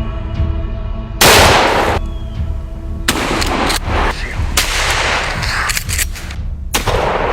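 Gunshots over music: one loud blast about a second in, then a rapid run of shots from about three seconds on.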